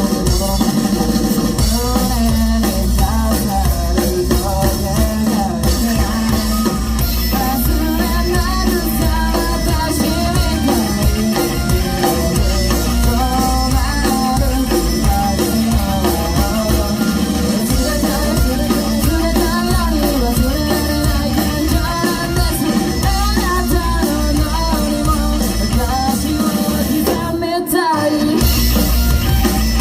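Rock band playing live: sung vocals over drum kit and electric guitar. The band drops out for a moment near the end, then comes back in.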